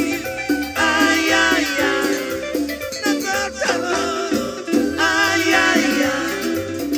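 A live cumbia band playing: a wavering melodic lead over a steady bass and percussion beat.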